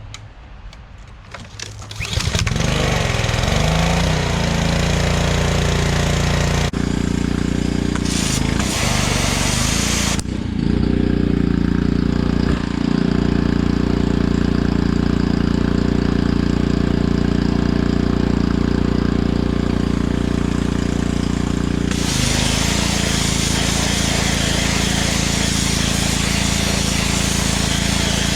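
Gas pressure washer engine starting about two seconds in and running steadily, with the spray from the wand and slurry-blasting attachment hissing on and off several times. The spray hiss is heaviest and steadiest through the last third.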